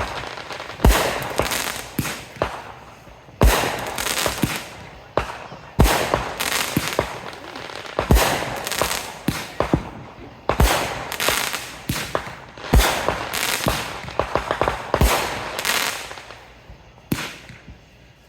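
Fireworks going off in a regular series: a deep thump about every two seconds, each followed by a spray of crackling pops that fades before the next.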